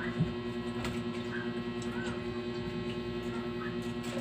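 Steady electrical hum, with a few faint short clicks and rustles from people eating at the table.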